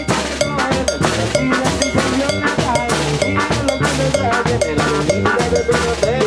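Live band music: timbales, cowbell and cymbal struck in a fast steady rhythm over a bass drum, with saxophones carrying the melody.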